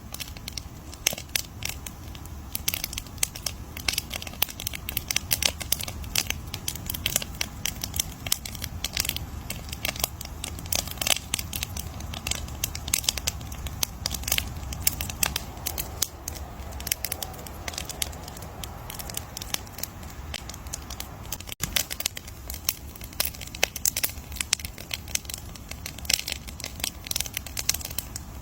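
Campfire crackling, with dense irregular pops and snaps over a low steady rumble, and a momentary break in the sound about three-quarters of the way through.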